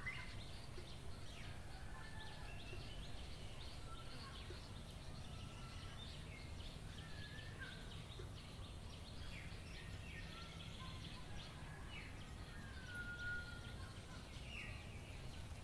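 Ambient outdoor sound of several birds chirping and calling, with a few short whistles, over a steady low background rumble.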